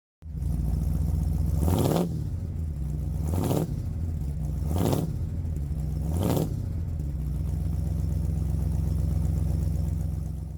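An engine idling with a steady low note, blipped four times, each rev rising and falling back about a second and a half apart.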